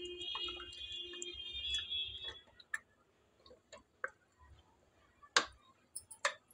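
A ladle clinking and scraping against the side of a metal cooking pot as mutton nihari is stirred: a handful of separate sharp clinks, the loudest a little over five seconds in. A steady high hum runs for the first two seconds or so and then stops.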